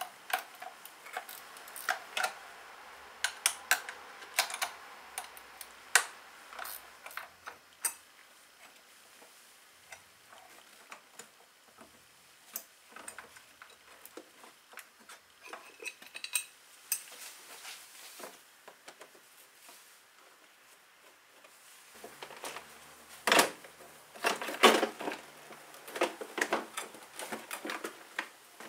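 Irregular metallic clicks and clinks of a small wrench working a car battery terminal nut. Near the end come louder plastic clacks and knocks as the air cleaner box is unclipped and opened.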